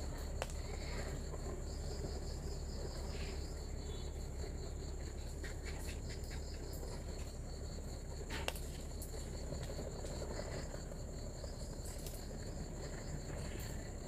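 Night insects, crickets, chirping steadily in two high-pitched layers, one a rapid pulsing trill, over a low steady hum. A sharp click comes about eight and a half seconds in.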